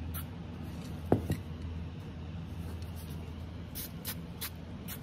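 Short hissing puffs from a hand-held aerosol spray can misting colour onto stained wood: one early, one just after a second, and three quick ones near the end. A single knock about a second in, over a steady low hum.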